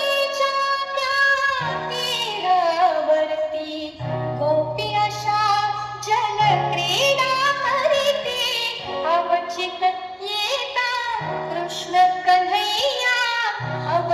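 A song playing: a woman singing a gliding melody over instrumental backing with a steady bass line.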